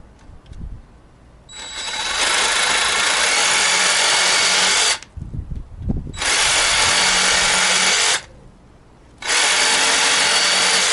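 DeWalt 20V MAX cordless jig saw (DCS331B) with a wood blade, running in three loud bursts as it cuts wood: a long run of about three seconds, then two shorter ones. The blade stays in and the saw cuts without trouble. A few low knocks fall between the first and second bursts.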